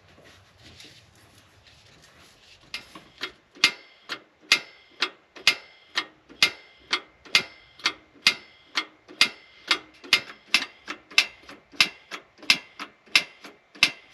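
Mr. Heater Buddy propane heater's piezo igniter clicking over and over, about two sharp clicks a second with a short metallic ring, starting about three seconds in: repeated attempts to light a pilot that won't stay lit.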